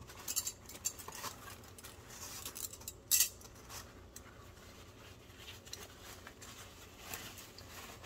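Paper towel rustling as it is folded and rolled around plastic cutlery, with light clicks of the plastic utensils against each other and the counter, and a sharper rustle about three seconds in.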